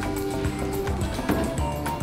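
Background music with a steady beat, a bass line and sustained melody notes.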